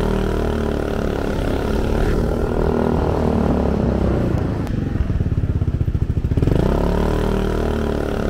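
Small motorcycle engine running under the riders, heard from the seat. It pulls steadily, eases off a few seconds in, and picks up speed again about six and a half seconds in.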